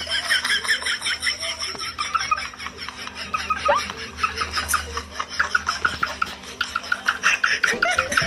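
Laughter: a rapid, unbroken run of short giggles, several a second, with a faint low hum beneath.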